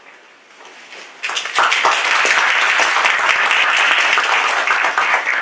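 Audience applauding: dense, steady clapping that starts about a second in.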